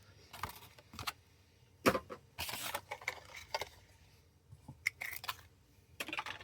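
Hands handling diecast-car packaging: a few sharp clicks and short stretches of rustling and scraping.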